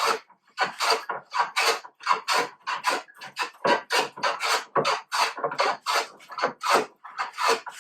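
Low-angle jack plane with a heavily cambered iron taking quick, short strokes across a rough board at an angle, about two to three rasping cuts a second. This is the coarse first stage of flattening, hogging material off fast.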